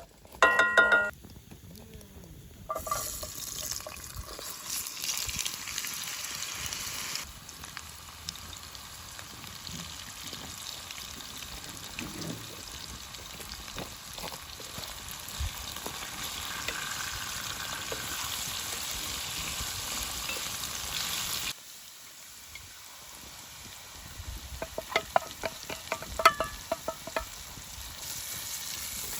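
Food sizzling as it fries in a pan, with stirring, as a steady hiss that cuts off suddenly about two-thirds of the way through. A brief loud pitched sound comes near the start, and a few sharp clicks near the end.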